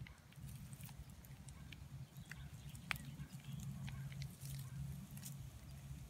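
Faint, scattered crackles and ticks of dry leaves and bark mulch being disturbed, with one sharper click about halfway through, over a low steady hum.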